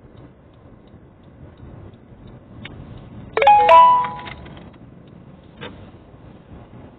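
A loud two-note electronic ding-dong chime about halfway through, ringing out for about a second, over the low steady hum of a car driving.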